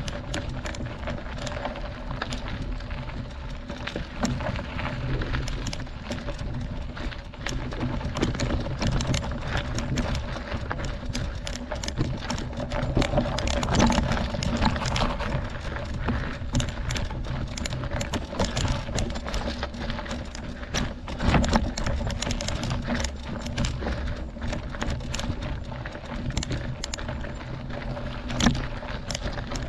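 Mountain bike rolling over a rocky gravel road, tyres crunching and the bike rattling, with frequent clicks and knocks. It is jolted harder about halfway through and again about two-thirds of the way through.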